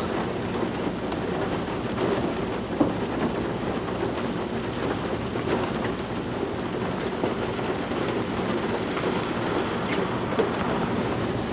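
Steady rumbling, rushing noise of a severe thunderstorm, wind and rain on the microphone, with a couple of faint clicks.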